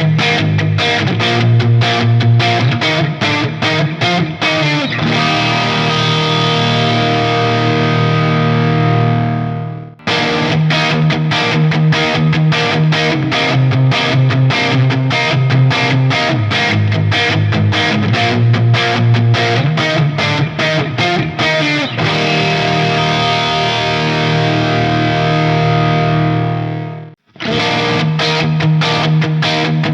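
PRS Standard 24 electric guitar with DMO pickups, played through heavy distortion. A fast picked riff runs into a held chord that rings for several seconds and is choked off abruptly; this happens twice, and the riff starts again near the end.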